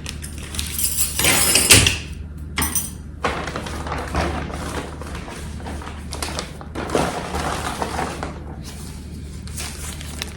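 Rustling with light knocks and clinks as small items and their packaging are handled, over a steady low hum.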